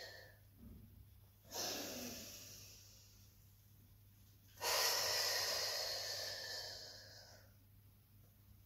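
A woman taking two long, deep, audible breaths in time with a Pilates cat stretch. Each breath starts strongly and fades away over a couple of seconds. A faint steady low hum runs underneath.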